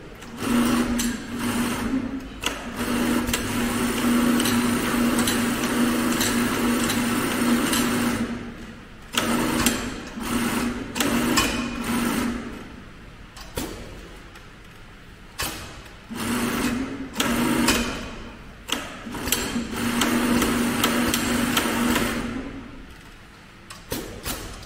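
Keestar 1510-L14 heavy-duty FIBC big bag sewing machine (belt-driven, not direct-drive) stitching at speed in several runs. There is a long run of about eight seconds first, then shorter runs with pauses, and sharp knocks where it stops and starts.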